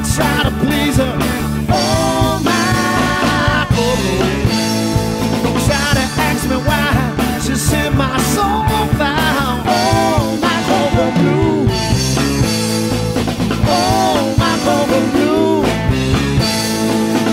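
Blues-rock band music: electric guitar, drum kit and keyboards playing together with a steady beat.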